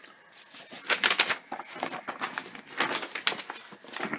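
An irregular run of sharp clicks and rustles, several a second, thickest about a second in.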